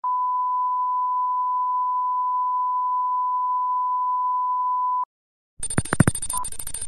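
Steady 1 kHz line-up test tone accompanying colour bars, running for about five seconds and cutting off abruptly. After a short silence, an old-film countdown leader effect starts: projector crackle and hiss with a few thumps, then a short beep.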